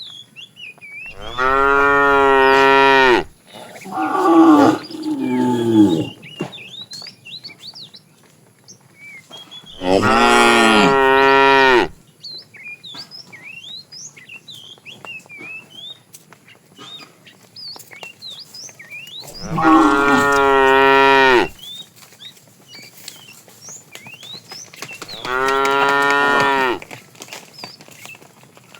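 Cattle mooing: four long, drawn-out moos of about two seconds each, several seconds apart, plus two shorter calls falling in pitch about four seconds in.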